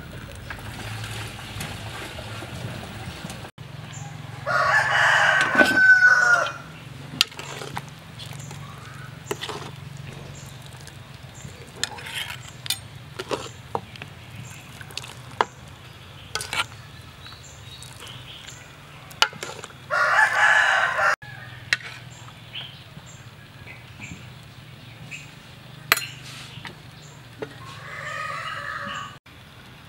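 A rooster crowing twice, each crow about two seconds long, with a fainter call near the end. Light clinks of a metal ladle against the pot and bowl come in between.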